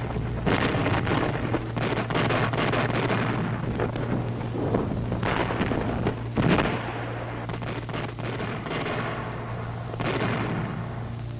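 Gunfire and explosions of a naval battle rumbling one over another on an old film soundtrack, over a steady low hum from the film's sound.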